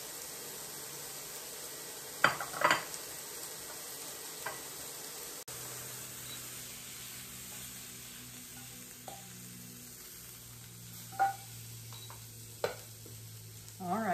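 Steak pieces sizzling in a skillet. A few sharp knocks of a serving spoon against a glass bowl come about two seconds in, and near the end a wooden spoon knocks and scrapes the pan as the steak is scooped out.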